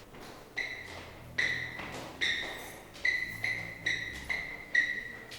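Music: one high, bell-like note struck about eight times in an uneven rhythm, each strike ringing briefly and fading, over a faint low hum.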